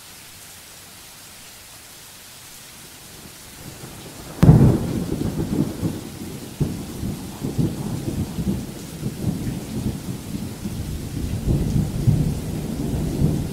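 Steady rain, then a sharp thunderclap about four seconds in, followed by deep rolling thunder that rumbles on and cuts off abruptly at the end.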